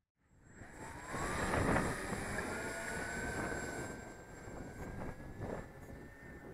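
Twin electric motors and propellers of a foam RC plane at take-off power: a whirring rush with a thin whine that rises in pitch over the first few seconds as the plane accelerates, then holds steady as it climbs away.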